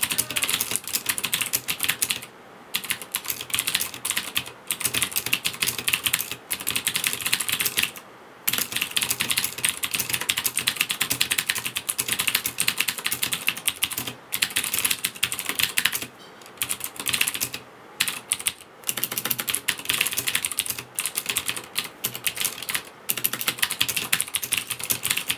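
Fast typing on a Leopold tenkeyless mechanical keyboard with Cherry MX Blue switches: dense runs of sharp, high clicks broken by short pauses every few seconds.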